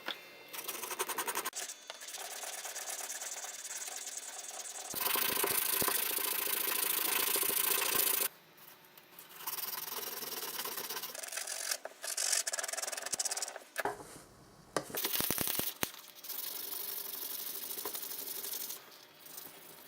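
Hand sanding or filing on the aluminium housing of a 1976 angle grinder, a gritty rubbing scrape in several separate spells. The spells break off and restart abruptly, and the loudest one runs from about five to eight seconds in.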